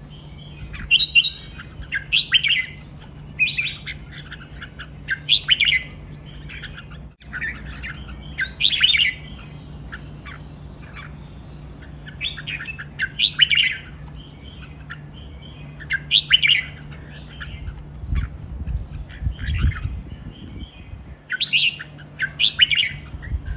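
Caged red-whiskered bulbuls singing: short, bright, chirpy phrases repeated every second or two.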